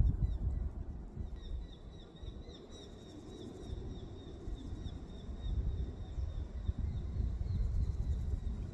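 A small bird repeating a short, high, downward-slurred call about twice a second, starting about a second in, over a low rumble of noise on the microphone.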